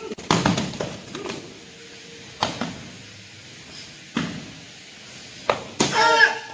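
Sharp thuds and slaps from a Shorinji Kempo pair demonstration: bodies, feet and strikes hitting the mat at irregular gaps of one to two seconds. Near the end comes a loud, short shout, a kiai.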